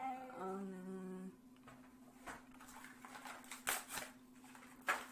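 A person hums one short held note, followed by a few scattered crackles and taps as carded Hot Wheels blister packs are handled.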